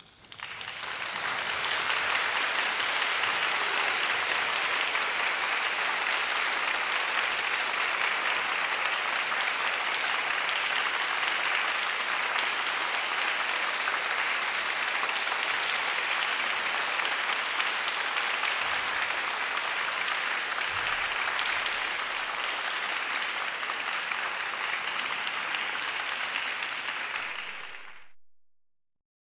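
Audience applauding steadily. It breaks out suddenly from near silence at the start and cuts off abruptly near the end.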